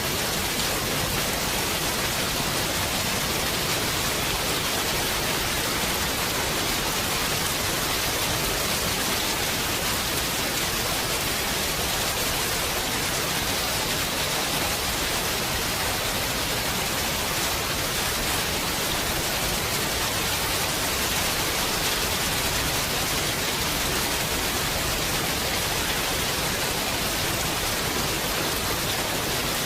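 Heavy rain falling in a steady, even hiss, with no thunder claps.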